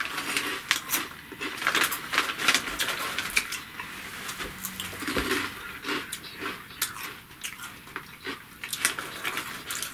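Harvest Snaps green pea snack crisps being crunched and chewed by two people: quick, irregular crackling crunches, with the crinkle of the plastic snack bag.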